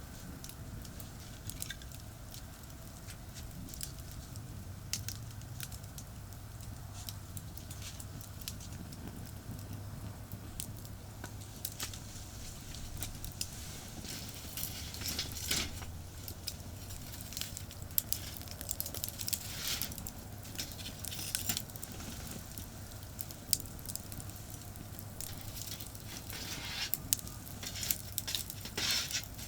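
Wood campfire crackling, with irregular snaps and pops that come in denser flurries several times. Under it runs the steady low rumble of traffic on a nearby expressway.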